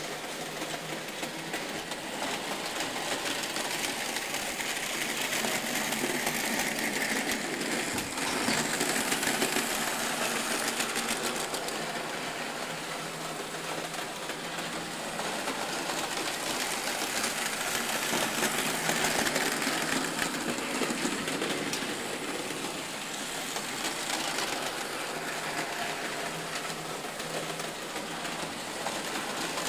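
Märklin model trains running on the layout: a steady small electric-motor whirr with wheels clattering over the track, growing louder twice as trains pass nearer.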